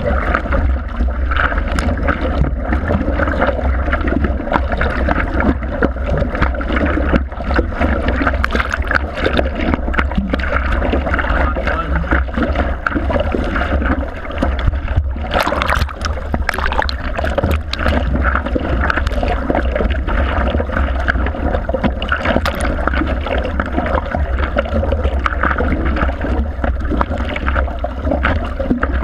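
Seawater sloshing and splashing around a surfboard-mounted camera as the surfer paddles, over a steady low rumble, with a few louder splashes about halfway through.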